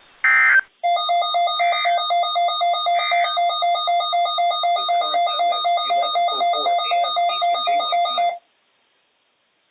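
NOAA Weather Radio Emergency Alert System end-of-message: a short screeching digital data burst, then a rapid electronic alarm beeping about four times a second for about seven seconds, with two more brief data chirps laid over its start, before it cuts off suddenly.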